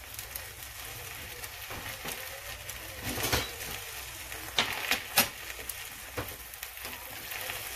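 Egg frying in oil in a non-stick pan: a steady faint sizzle, broken by a few sharp pops and crackles from about three seconds in.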